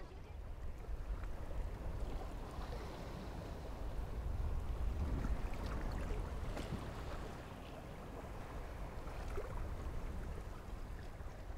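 Harbour ambience around a moored yacht: a steady low rumble with faint lapping water and a few small clicks.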